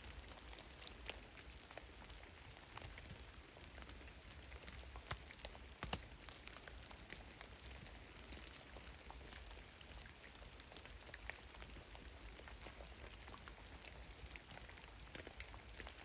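Meltwater drops falling from heavy melting snow, dripping at irregular, scattered intervals over a faint hiss, with a couple of louder drops about six seconds in.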